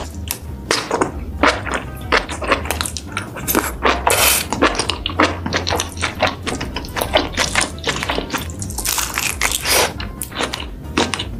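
Wet eating sounds from seafood in thick sauce: chewing, lip smacks and a dense run of sticky clicks, several a second, with background music underneath.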